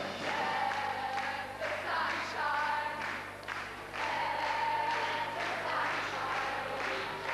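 Music with a group of voices singing, phrases made of long held notes.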